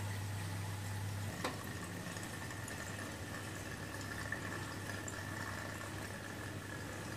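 Steady low hum and watery hiss of a reef aquarium's pumps and water flow, with a faint high tone over it. A single click about a second and a half in, after which the low hum is weaker.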